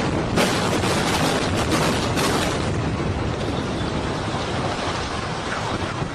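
Explosive building demolition: a dense, rumbling roar of collapse with sharp cracks in the first couple of seconds, easing off gradually.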